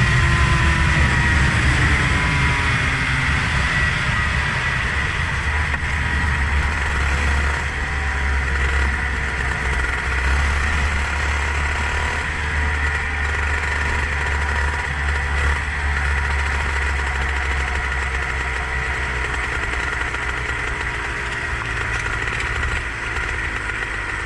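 Vehicle engine slowing down, its pitch falling over the first few seconds, then running steadily at low revs over a low rumble.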